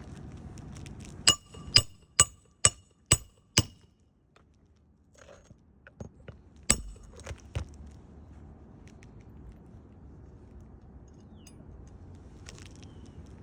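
Six quick hammer blows on metal, about two a second, each with a bright ringing clink. A few seconds later comes one more hard blow, then two lighter taps.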